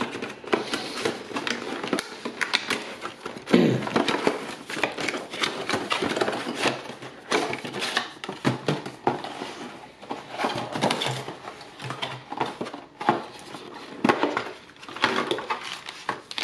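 Cardboard box and plastic packaging being handled and opened: irregular rustling, scraping and light knocks and clicks.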